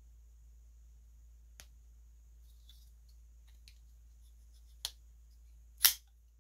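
Petrified Fish Beluga folding knife being worked by hand: a light click, a few faint ticks, then a sharper click near five seconds in and, about a second later, the loudest snap as the blade flips open and locks.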